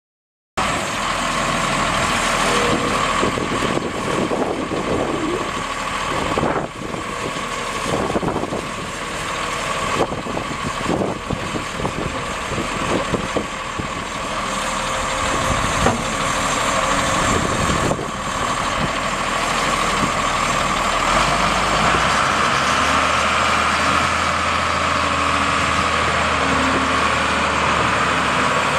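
Detroit six-cylinder turbo diesel engine of a Case 1085B Cruz Air wheel excavator running, with a steady whine over it and scattered knocks and clatter in the first half. About two-thirds of the way through the engine speed rises and holds higher.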